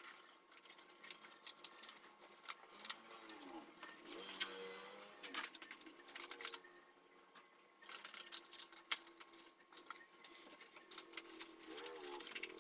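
Faint, irregular bursts of quick clicking and tapping, like hard plastic being handled. Faint pitched sounds glide up and down in the background about three seconds in and again near the end.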